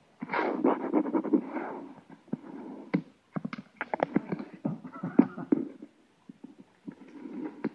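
Close scratching and rustling with many sharp clicks and taps: a dense rustle for the first couple of seconds, then irregular clicks and shorter scrapes.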